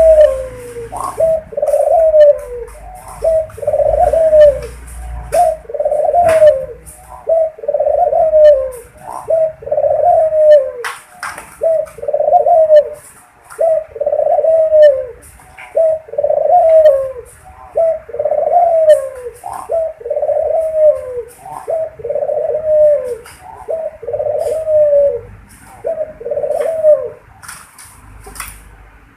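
A puter dove (domestic ringneck dove) cooing over and over: a short coo with a falling end, about one each second, with faint scattered clicks between.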